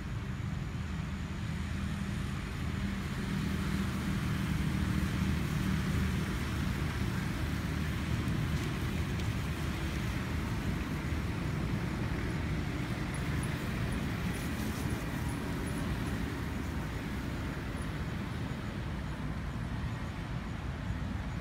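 Steady low rumble of distant motor traffic.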